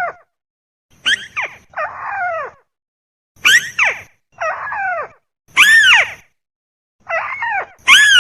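Recorded call of the burung tikusan, a crake or rail, played as a bird-lure track. Short, loud calls fall sharply in pitch, some in quick pairs, and repeat about once a second with silent gaps between.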